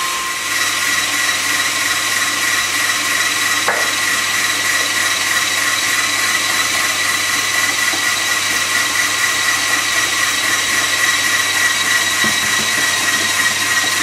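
Electric hand beater running steadily with a constant high whine, whipping egg whites and sugar into meringue over a bain-marie. A small click about four seconds in.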